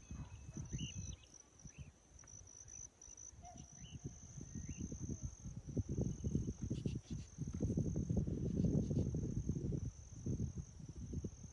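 A steady high-pitched insect chorus, with a few faint short chirps early on and irregular low rumbling noise that grows loudest about eight to ten seconds in.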